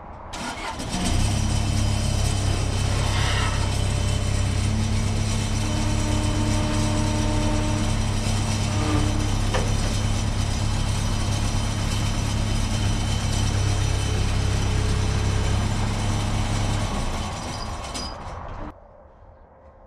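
Skid steer running hard while its lift arms raise a stripped car body shell. A loud, steady engine hum with a rattly mechanical clatter starts about a second in and cuts down sharply near the end.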